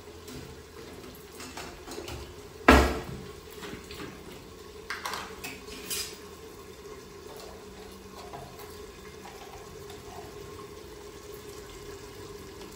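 Kitchen utensils being handled: one loud metal clank a little under three seconds in, then a few lighter clinks around five and six seconds, over a steady low hum.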